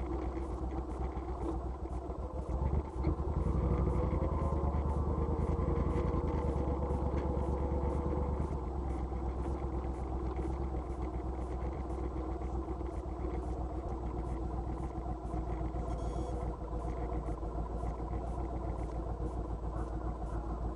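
A motor vehicle's engine running steadily, growing louder about three seconds in with a slight rise and fall in pitch, then settling back to a steady rumble until it cuts off suddenly.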